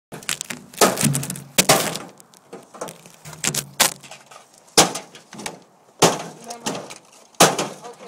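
Scrap microwave ovens being smashed apart: irregular sharp cracks and crashes of breaking glass and metal, about half a dozen loud hits with smaller clatter between them.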